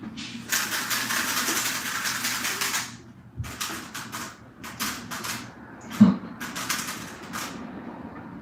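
Plastic speedcube being turned fast by hand: a rapid, dense clatter of layer turns for about two and a half seconds, then scattered single clicks.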